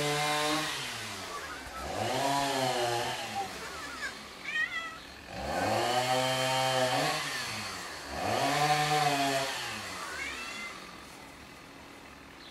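Domestic cat yowling: four long, drawn-out meows, each rising and then falling in pitch, separated by short pauses.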